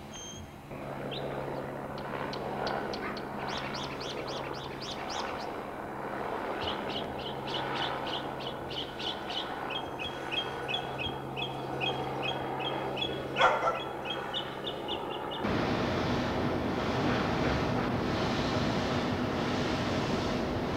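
Small birds chirping: short repeated high chirps, then a steady run of calls at about three a second. About fifteen seconds in, this cuts off abruptly to a steady rushing noise of wind and traffic.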